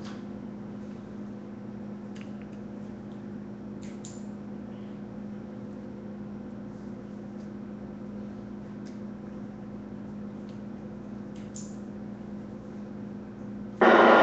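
Room tone: a steady low hum with a few faint clicks. Near the end, a sudden loud rush of noise cuts in.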